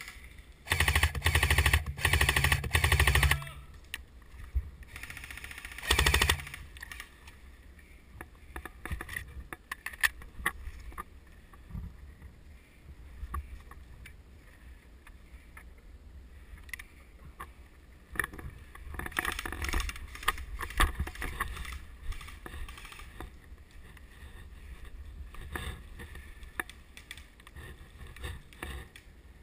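Airsoft rifle firing a long full-auto burst of about two and a half seconds, then a short burst a few seconds later. After that come scattered clicks and rustling.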